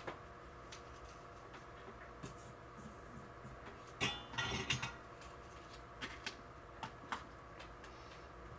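Small clicks and clatter of tools and a plastic tub being handled on a workbench, with a denser rattling cluster about four seconds in and a few single clicks after, over a faint steady hum.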